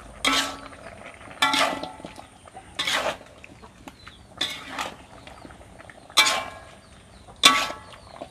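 Metal spatula scraping and clanking against a metal wok while chicken pieces are stir-fried, with a short ringing stroke about every second and a half.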